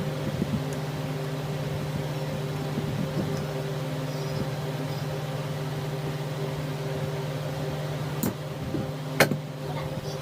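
An electric motor running at a steady speed with an even hum, with two sharp clicks near the end, the second louder.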